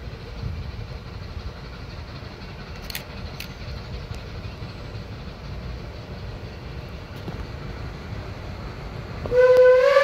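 Low rumble as the Shay geared steam locomotive works uphill, then about nine seconds in its steam whistle starts blowing, loud and steady, rising slightly in pitch near the end.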